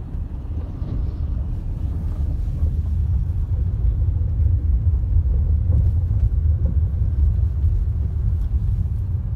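Low, steady rumble of a car's tyres and engine heard from inside the cabin, driving over a rough, unfinished road surface.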